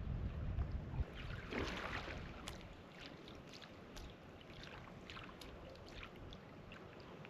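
A kayak paddle stroke: a splash about a second and a half in, then water dripping and trickling in scattered small drops. Wind rumbles on the microphone for the first second.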